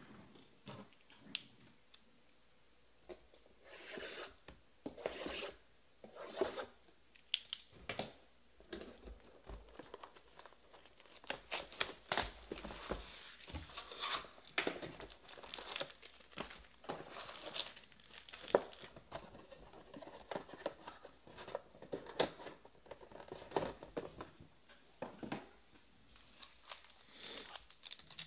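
A cardboard trading-card hobby box being torn open by hand, then its foil card packs handled: irregular tearing, rustling and crinkling with sharp snaps and clicks throughout.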